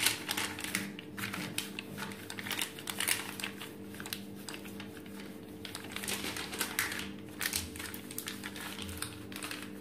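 Wooden rolling pin rolling cashew dough between two sheets of butter paper: the paper crinkles and rustles with each back-and-forth stroke, over a steady low hum.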